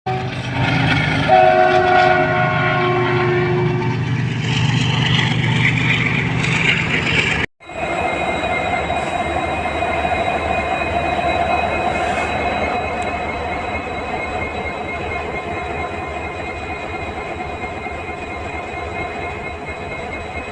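A multi-tone locomotive horn sounds for about three seconds near the start. After a brief cut, a WDP4D locomotive's EMD 710 two-stroke diesel engine runs steadily with its typical hum and high whine.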